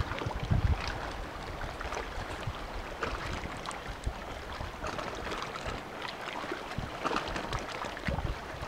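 Small sea waves lapping and splashing against a wooden jetty, a steady wash scattered with little splashes. Low gusts of wind buffet the microphone, just after the start and again near the end.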